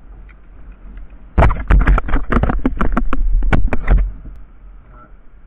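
Handling noise: a rapid run of sharp knocks and clatters lasting about two and a half seconds, starting about a second and a half in, then dying away.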